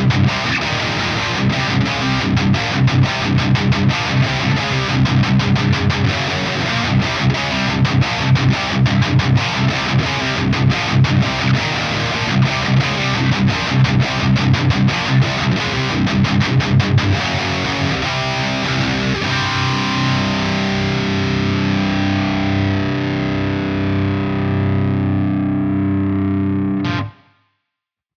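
High-gain distorted electric guitar through an EVH 5150 III-style amp simulation, playing fast, tightly picked riffs. It then lets chords ring for several seconds before cutting off abruptly near the end.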